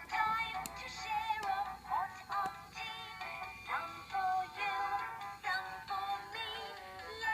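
Toy teapot playing a tinny electronic song with a synthesized singing voice.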